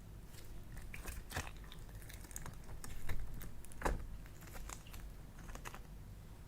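Slime being worked by hand with clay mixed in: irregular soft clicks and crackles, with one louder pop a little before four seconds in.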